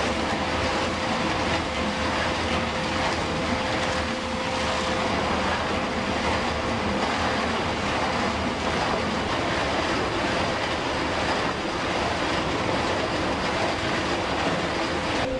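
Large toothed cutting drum grinding into a concrete wall: a steady, harsh grinding din with a constant tone running under it.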